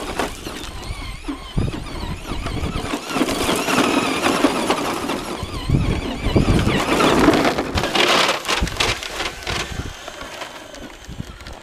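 A Traxxas Slash RC truck's brushless electric motor whining, its high pitch rising and falling with the throttle, over the crunch of its tyres churning gravel and sand. Loudest about seven to eight seconds in, then fading.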